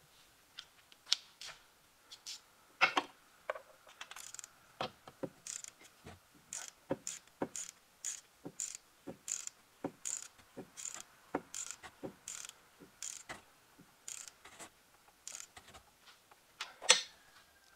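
Hand ratchet wrench clicking in short repeated strokes, about two clicks a second, while a bolt on the replacement alternator is driven up from the wheel well. There is one louder click or knock near the end.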